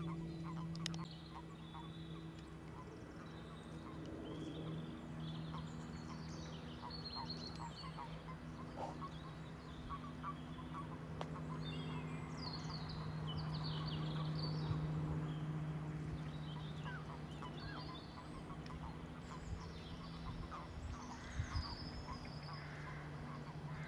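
Frogs calling from a marsh: many short calls overlapping in a chorus, with birds chirping and trilling higher up, over a steady low hum.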